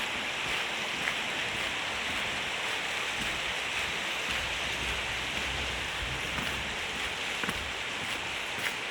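A steady rush of flowing water, even throughout, with a few faint light clicks.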